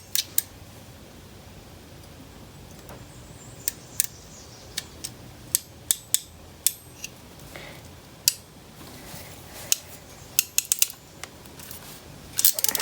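Sharp, irregular metallic clicks from a hand crimping tool squeezing a terminal onto a wire, along with small metal connectors being handled.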